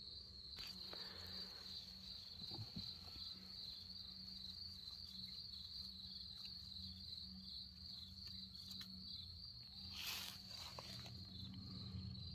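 Insects chirping in a continuous, fast-pulsing high trill, faint, with a few soft clicks and a brief rustle about ten seconds in.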